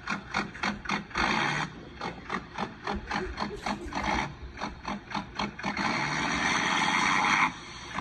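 Toy monster truck tow rig and its steel chain on concrete: quick rhythmic clicking, about five a second, with two longer rasping scrapes, one about a second in and a longer one from about six to seven and a half seconds.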